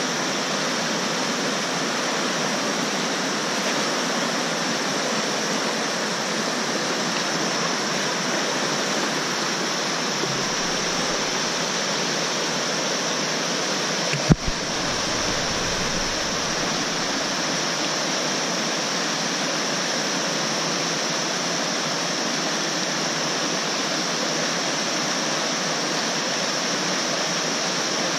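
Steady rush of whitewater over the rocks of a fast mountain river. A single sharp knock about halfway through.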